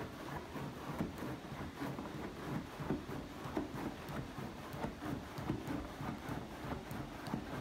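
A German Shepherd digging with its front paws at sofa cushions and a throw blanket: a quick, irregular scuffing and rustling of fabric.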